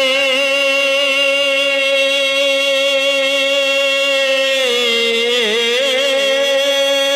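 A man's voice holding a long unaccompanied sung note in a marsiya recitation, level for most of the time, with a wavering ornament about five seconds in before the note settles again.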